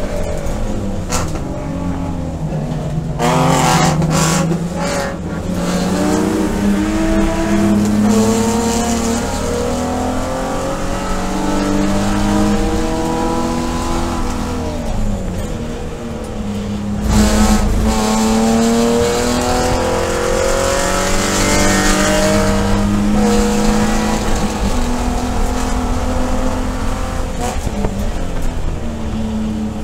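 BMW E46 330i race car's 3.0-litre inline-six heard from inside the cockpit under full race load. Its pitch climbs as it pulls through the gears, then falls away on lifts and downshifts, most sharply about halfway through, before climbing hard again.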